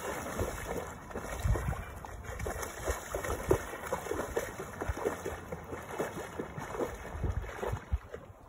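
Irregular splashing and sloshing of shallow seawater from wading through it, with low gusts of wind rumbling on the microphone every second or two.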